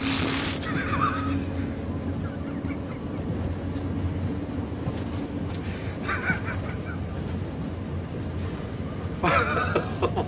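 Steady rumble of a metro carriage in motion, with short bursts of stifled laughter about a second in and again around six seconds. Near the end someone breaks into loud, rhythmic laughter.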